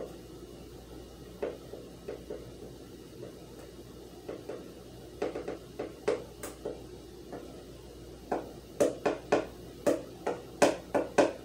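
Kitchen utensil knocking against a mixing bowl as flour is added. Scattered sharp knocks at first, then quicker runs of taps in the last few seconds.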